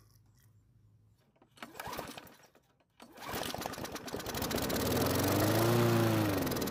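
Briggs & Stratton push-mower engine, its tank fuelled with diesel, starting up about three seconds in. It picks up speed with a rapid even firing beat, then begins to slow near the end.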